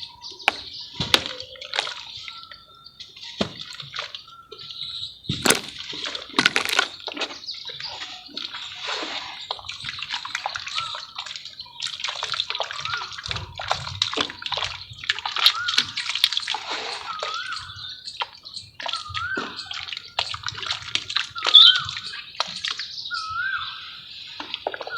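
Lumps of red mud crumbling and dropping into water: irregular splashes and sloshing, with soft crumbling breaks between them.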